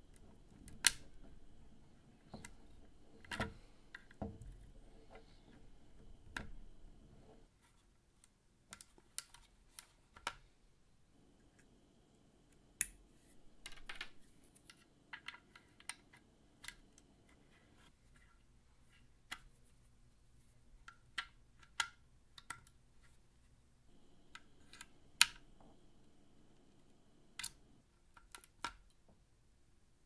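Scattered clicks and knocks of hands handling a Physical Synthesis Cicada unit: twisting its parts into place and plugging cables into its jacks. A faint hum comes and goes underneath, dropping out about seven seconds in and returning twice.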